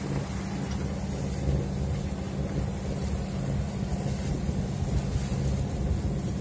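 Wind buffeting the microphone and water rushing along a sailing yacht's hull, over a steady low hum.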